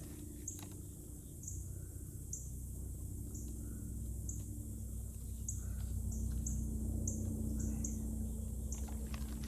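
Short, high chirps from small animals, about a dozen at uneven intervals, over a steady low hum.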